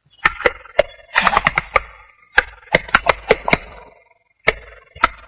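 Collared peccary and jaguar fighting: a run of sharp clacks and cracks coming in quick irregular clusters.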